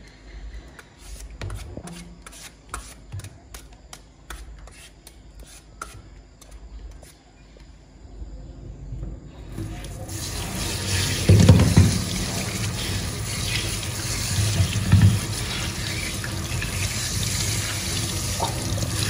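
A metal vegetable peeler scraping strips off a green papaya in quick repeated strokes. About halfway through, a kitchen tap starts running onto the fruit and into a stainless steel sink, with a couple of dull thumps as the papaya is handled under the water.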